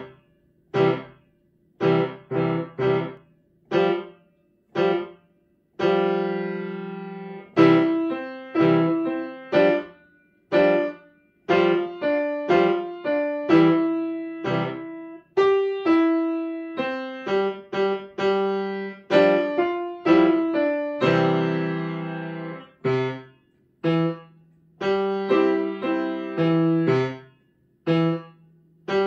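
Grand piano played by a young child: a simple piece of detached single notes and short chords with brief silences between them for the first several seconds, then longer held chords alternating with short clipped notes, each note ringing and fading.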